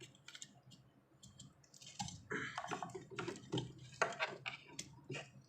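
Small plastic and metal clicks and rattles, sparse at first and then busier from about two seconds in: a new starting relay being pushed onto a refrigerator compressor's terminal pins.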